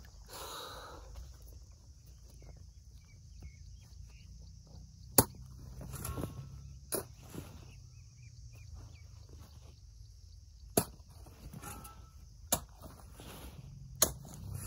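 A hand hoe chopping into dry soil and dragging it into a planting pit: five sharp strikes at uneven intervals, with softer scraping of earth between them.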